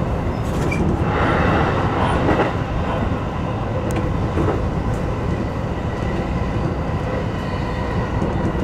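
Electric commuter train running, a steady rumble of wheels on rail heard from inside the front car, with a faint steady whine over it.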